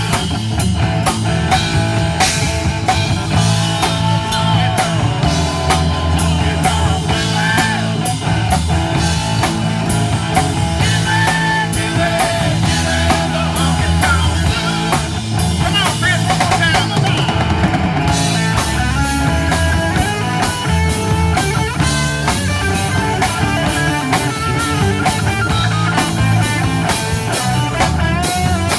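Live rock band playing: a drum kit keeps a steady beat under electric guitars and bass, with a pitched lead line bending up and down over it.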